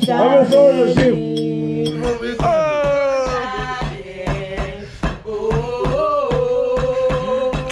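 Music with male singing: long held notes in more than one voice, with short percussive ticks between them.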